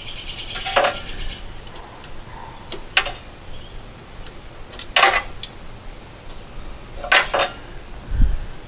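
Sharp metallic clicks about every two seconds from a wrench working the clutch cable's threaded adjuster, with a brief rasp of metal at the start.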